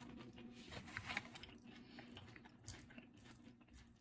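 Faint chewing of food, with a few soft crunches and mouth clicks, over a faint steady low hum.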